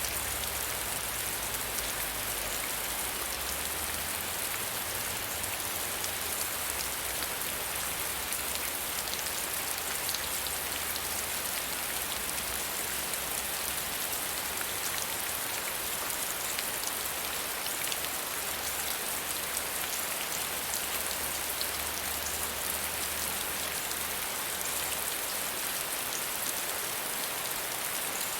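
Soft, steady rain falling: a dense, even patter of drops. A faint low rumble comes and goes underneath.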